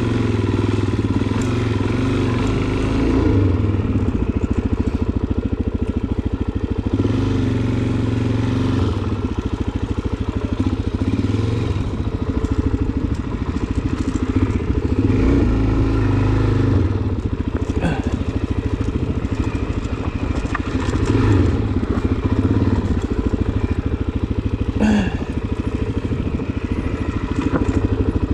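Suzuki DR-Z400SM's single-cylinder four-stroke engine running under way, its note rising and falling with the throttle. A couple of brief sharp knocks are heard, one about two thirds through and one near the end.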